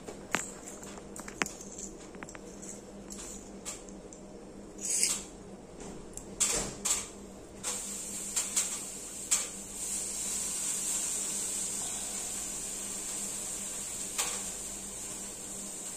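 Scattered knocks and clatter of wood and tools being handled, loudest in a cluster of bangs around the middle. A steady high hiss comes in about halfway through.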